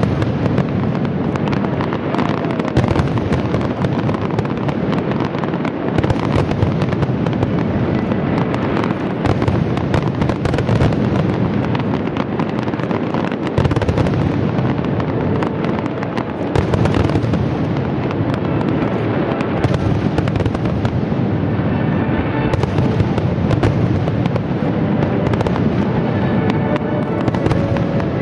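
Fireworks shells bursting in a dense, continuous barrage of bangs and crackling, with music playing underneath.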